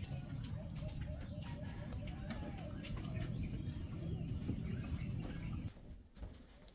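Steady background ambience with a low rumble, a constant high-pitched whine and faint chirps; it all cuts off abruptly near the end.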